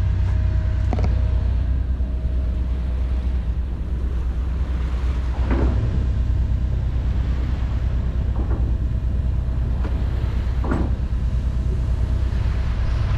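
Sailing yacht's inboard diesel engine running steadily under way, a continuous low drone.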